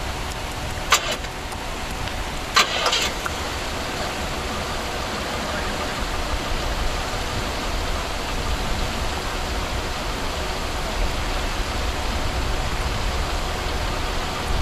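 Steady outdoor background noise with a low rumble. It is broken by two short, sharp clicks or knocks about one second and two and a half seconds in.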